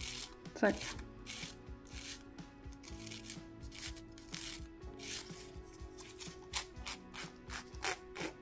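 Nail file rasping across the edge of a clear plastic press-on nail tip in quick, uneven strokes, softening a sharp edge of the tip; the strokes come faster and louder near the end.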